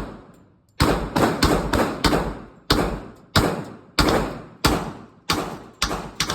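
Gunfire at a shooting range: about a dozen shots fired in quick succession, roughly one every half second, each with a short ringing echo.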